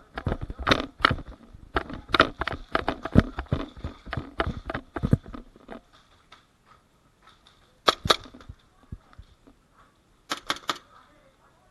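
Airsoft pistol firing: a couple of sharp cracks about eight seconds in and a quick string of three near the end, after a dense clatter of knocks and clicks in the first five seconds.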